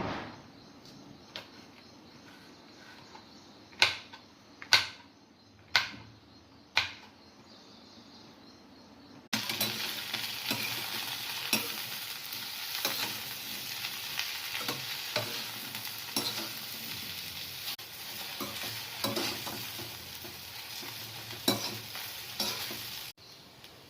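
A few sharp knocks of utensils, then food sizzling in hot oil in a pan while being stirred, with frequent small scrapes and clicks, in an okra (bhindi) stir-fry. The sizzling starts suddenly about nine seconds in and cuts off shortly before the end.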